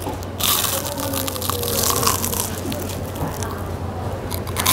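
Crisp batter of a fried king prawn crunching and crackling as it is bitten and chewed close to the microphone, starting about half a second in.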